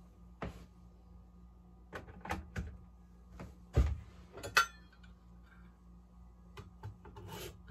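Kitchen clicks and knocks while making French press coffee: an electric kettle set down with a heavy thump, then a sharp ringing clink as the metal lid and plunger of a stainless French press are fitted on, with a few lighter knocks around it.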